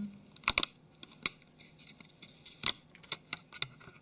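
Plastic snap-on battery cover of a Samsung Galaxy Mega 6.3 being pried off by hand, its clips letting go in a series of sharp clicks.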